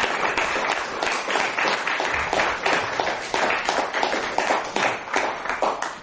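Applause: many hands clapping together, dense and steady, dipping in level near the end.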